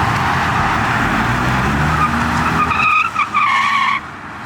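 A car leaving hard under full throttle with its tires spinning: engine noise under a hiss of tire noise. A tire squeal sets in about halfway and ends abruptly about four seconds in.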